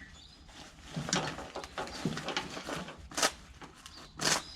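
Fabric tool roll bag being handled and rolled up, with rustling and two short, sharp swishes about three and four seconds in as its straps are worked.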